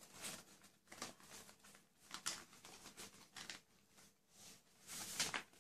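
Faint rustling and crinkling of paper as hands press and shape folds in a large sheet of origami paper, in short irregular scrapes, the loudest just before the end.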